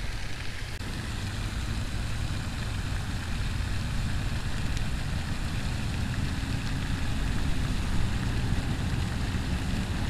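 Steady wind buffeting the camera microphone, a low, uneven rumble.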